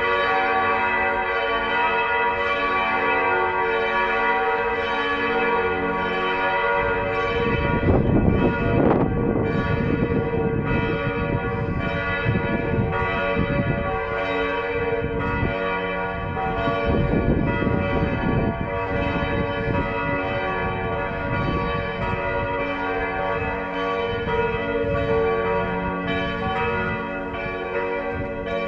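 Church bells ringing, several bells sounding together so that their tones overlap and hum on without a break. A low rumble rises under them around eight seconds in and again around seventeen seconds in.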